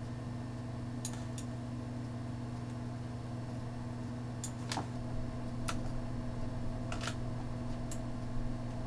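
Steady low hum from a computer setup, with about eight short sharp clicks scattered through it, typical of a computer mouse being clicked while a mesh is dragged into position.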